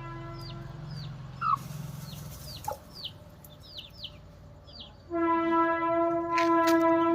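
High, falling chicken peeps repeated about twice a second. In the second half a loud, steady pitched note is held for more than two seconds.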